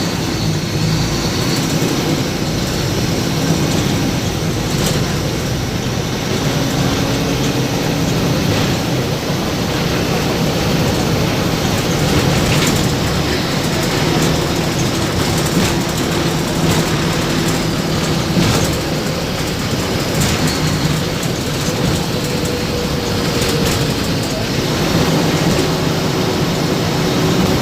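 Steady running noise of a moving vehicle, with a few low steady tones and scattered clicks.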